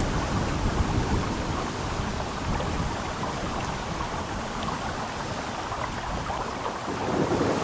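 Steady rushing noise with a low rumble: wind buffeting the microphone mixed with the flow of a nearby stream.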